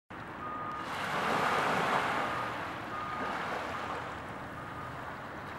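Sea surf: a wave washes in, swelling for about two seconds and then slowly fading.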